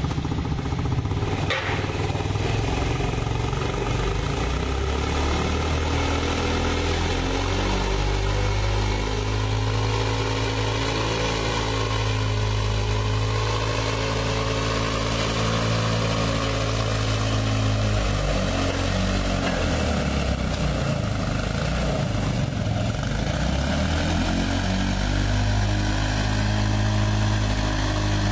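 Petrol-engine construction hoist running steadily as it winches a loaded material cage up the building. Its note shifts and wavers for a few seconds a little past halfway, then steadies again. There is one sharp knock about a second and a half in.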